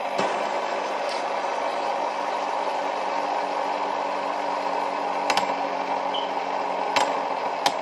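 Fidget spinners whirring on their ball bearings, a steady hum, with a few sharp clicks of the spinners being handled in the last few seconds.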